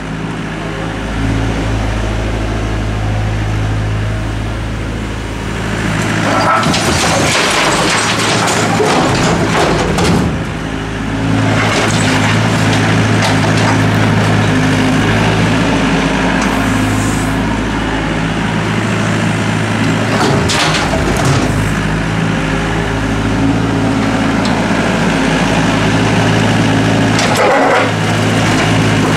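Diesel engine of a Doosan DX55W wheeled mini excavator running steadily, its note shifting as the hydraulics take load while the bucket digs. Brick and concrete rubble clatters and scrapes several times, most strongly in the first third and again near the end.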